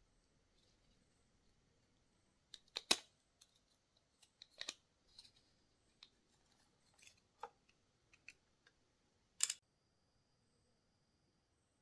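Scattered clicks and taps of a cordless hair clipper's plastic housing and small parts being handled and worked apart, with two sharper clicks about three seconds in and again later on.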